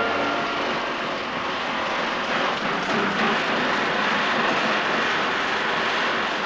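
Aircraft engines running: a steady rushing drone with no clear pitch.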